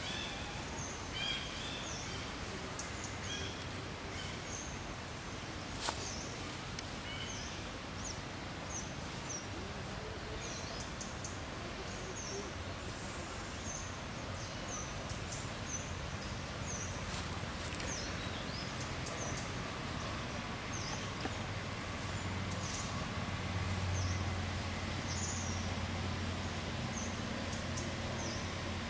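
Outdoor ambience: small birds chirping, short high calls repeated every second or so over a steady background noise. A low hum comes up about twenty seconds in.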